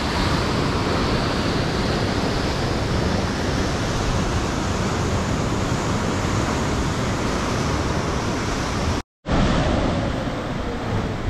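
Steady rush of ocean surf mixed with wind on the microphone, broken by a short gap of silence about nine seconds in.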